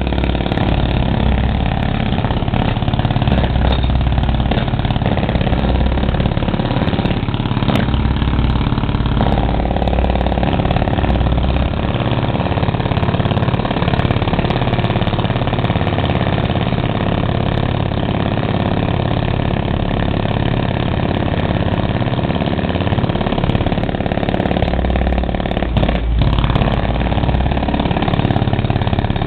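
Heavy diesel engine of construction machinery running steadily, its deep low hum swelling now and then.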